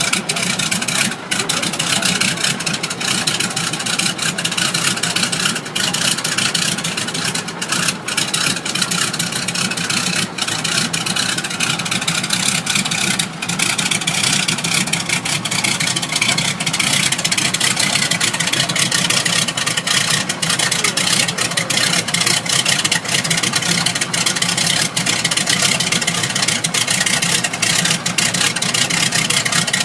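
Engine of a vintage Pilgrim propeller aircraft, running steadily.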